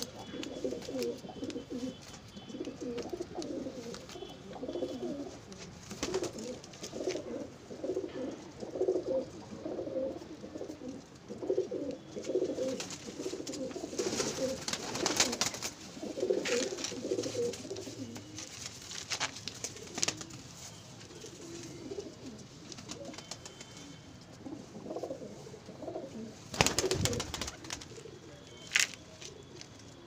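Domestic pigeons cooing over and over, strongest in the first half, with scattered sharp knocks and rustles and one louder thump near the end.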